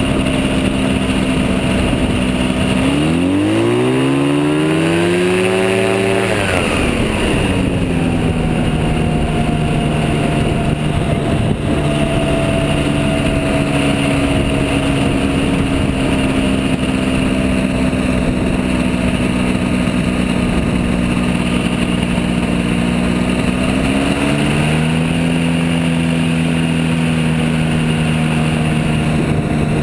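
Gyrocopter engine and propeller running while taxiing, heard from on board, with a steady engine note and a noisy rush underneath. About three seconds in the engine revs up sharply for a few seconds, then drops back to its steady note. Near the end it briefly rises again and settles at a slightly different pitch.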